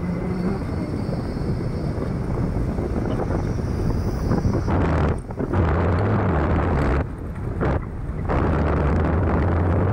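Wind rushing over the microphone of a moving motorcycle, with the steady low hum of the bike's engine underneath. The rush drops away briefly a few times past the middle.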